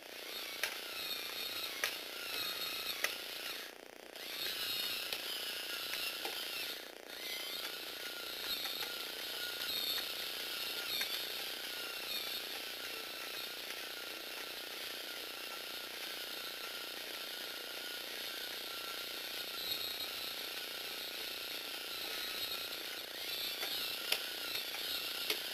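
Small electric motor in a Tamiya four-speed crank gearbox whirring with a warbling whine, and the Lego gears and legs ticking and clicking as the eight-legged walker turns in place. The whine cuts out briefly twice, about four and seven seconds in.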